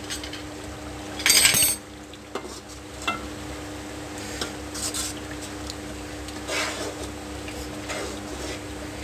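A long metal spoon stirring thick beef curry in a metal karahi, scraping and clinking against the pan. The loudest scrape comes about a second in, followed by lighter scrapes and knocks, over a steady low hum.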